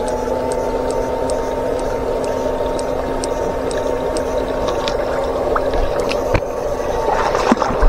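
Electrofishing shocker's inverter whining steadily while its poles are in the water, a high tone over a lower hum that cuts off about seven seconds in. Faint regular ticks and the trickle of the shallow stream underneath.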